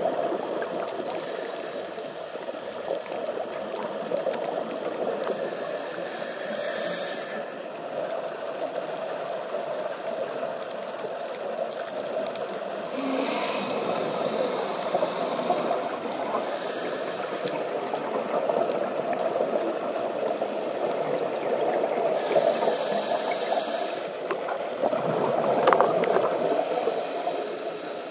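Underwater ambience picked up through a compact camera's sealed underwater housing: a steady rushing wash of water, with a scuba diver's regulator breathing, short hissing breaths every few seconds and bubbling exhalations.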